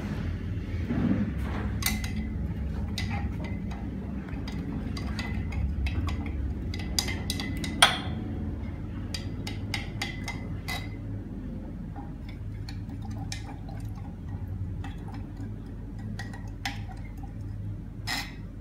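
Glass stirring rod clinking and tapping irregularly against the inside of a glass beaker as the liquid is stirred, with one sharper clink about eight seconds in. A steady low hum runs underneath.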